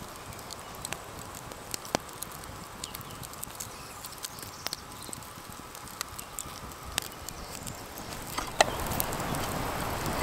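Campfire embers crackling, with scattered sharp pops over a steady hiss. Near the end there is a louder sharp click and the background gets louder.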